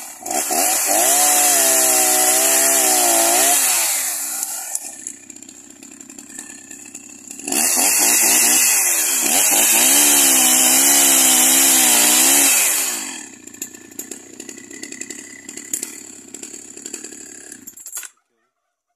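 Husqvarna 61 two-stroke chainsaw with a 22-inch bar cutting through a log at full throttle for about four seconds, then dropping to idle. It revs up again for a second cut of about five seconds, settles back to idle, and the sound stops abruptly near the end.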